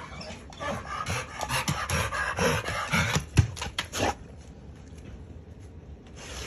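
Two dogs playing rough: scuffling and panting, with many sharp clicks and knocks for about the first four seconds, then it goes quieter.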